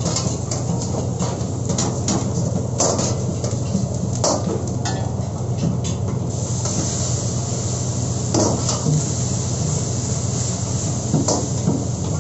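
Long metal ladle scraping and knocking against a carbon-steel wok over a steady low hum, with a string of sharp clanks. About six and a half seconds in, liquid poured into the hot wok sets off a loud sizzling hiss that carries on, with a few more clanks of the ladle.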